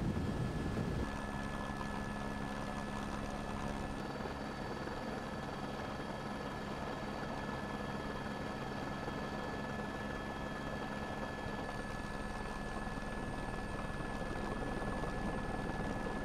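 Steady engine drone with several steady whining tones, the mix shifting slightly about a second in and again about four seconds in.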